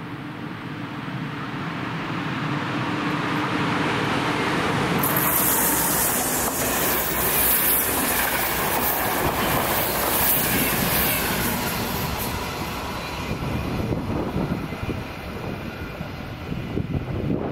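Intercity express train of blue-and-white passenger coaches coming out of a tunnel and passing close at speed: a rumble that builds for about five seconds, then a loud rush of wheels and air as the coaches go by, fading after about twelve seconds.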